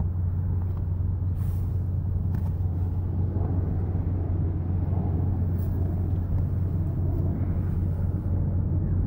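A steady low rumble, with a few faint rustles and bumps as a futon mattress is shifted.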